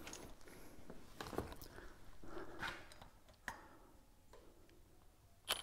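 Faint, scattered clicks and knocks as a bicycle wheel is handled by its axle, with one sharp click near the end.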